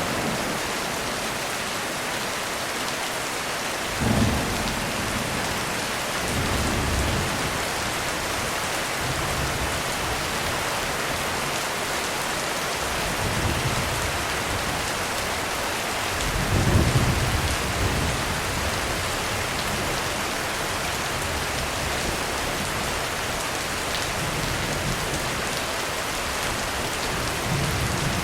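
Heavy rain pouring steadily on a roof, with distant thunder rumbling several times; the strongest rumble comes a little past halfway.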